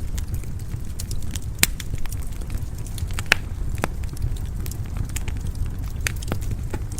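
Wood fire burning in a fireplace: a steady low rumble of flames with irregular sharp crackles and pops, the strongest about one and a half and three and a half seconds in.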